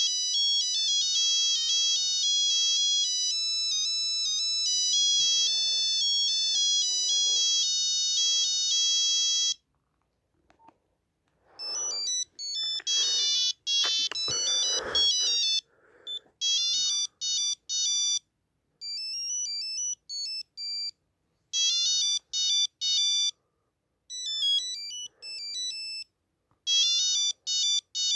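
Nokia 8265i ringtones playing from the phone's speaker as melodies of electronic beeps. One melody cuts off about nine and a half seconds in. After a short silence a second ringtone starts, followed by a tune of short, choppy bursts of beeps with gaps between them.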